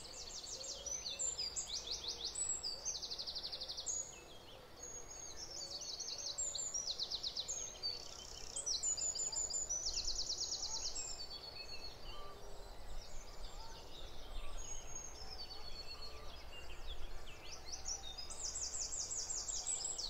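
Dawn chorus: several songbirds singing over one another, with high, fast trills of repeated notes coming again every few seconds.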